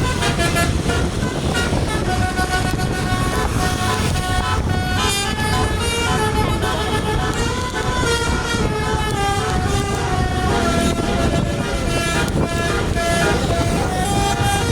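Tour bus's 'telolet basuri' multi-trumpet horn playing a long, drawn-out tune, its pitch stepping from note to note, over a steady low rumble from the bus.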